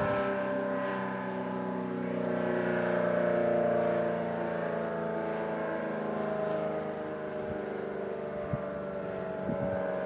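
ACA Allertor 125 rotating tornado siren sounding a steady, held chord, getting gently louder and softer as its horns turn. A couple of short knocks are heard near the end.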